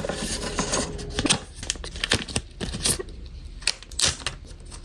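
Packaging being handled and opened: irregular crinkling and tearing of wrapping, with scattered small clicks and rustles.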